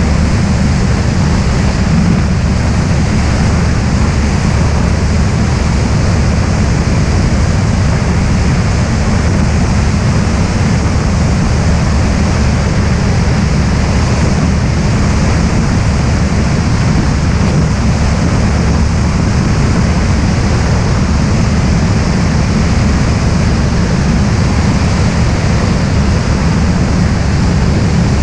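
Steady rush of wind and a single-engine light aircraft's engine and propeller running in flight, picked up by a camera mounted outside the plane. The noise is loud and unchanging, heaviest in the low end.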